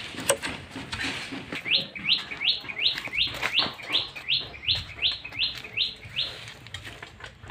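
A bird calling: a run of about a dozen short, evenly spaced rising notes, two or three a second, starting about two seconds in and stopping about a second before the end.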